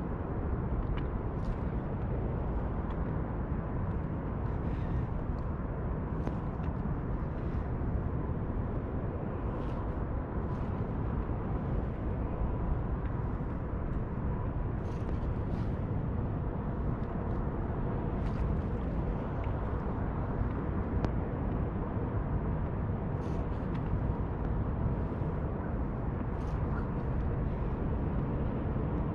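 Steady wind rumble on the microphone and water moving past a kayak's hull as it travels, with small irregular splashes and drips every second or so.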